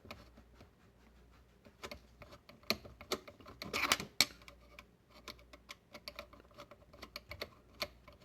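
Scattered small clicks and metal taps, with a louder scrape about four seconds in, from a flathead screwdriver loosening the screws of the cable collar on a garbage disposal.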